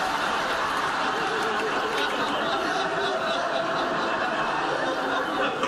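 Sitcom studio audience laughing: a long, steady wash of laughter from many people that begins to die away near the end.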